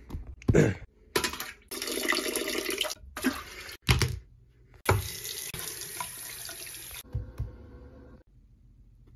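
Water running in several short bursts that start and stop abruptly, the longest lasting about two seconds. A few loud thumps fall between them, the loudest about half a second in.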